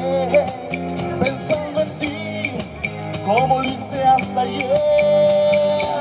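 A live Latin band playing a song on congas, acoustic guitar and electric bass guitar, with a steady beat and a sliding melody line over it.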